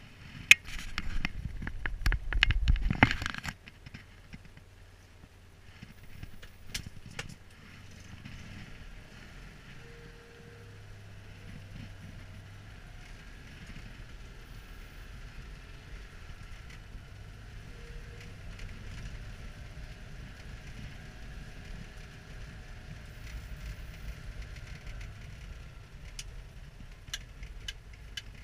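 Citroën Dyane 6's air-cooled 602 cc flat-twin engine running quietly, heard from inside the cabin as the car moves slowly. A loud clattering rattle with sharp clicks fills the first three seconds or so.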